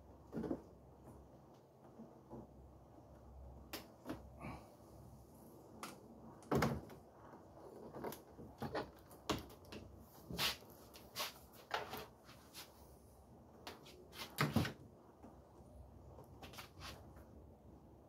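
Irregular clicks and knocks of tools and parts being handled while working on a car door handle assembly. The two loudest knocks come about six and a half and fourteen and a half seconds in.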